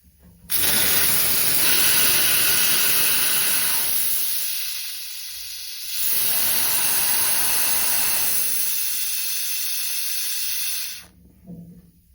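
Compressed-air coolant mister on a lathe spraying: a loud, steady hiss that starts about half a second in, eases off for a couple of seconds in the middle, comes back, and cuts off sharply about a second before the end.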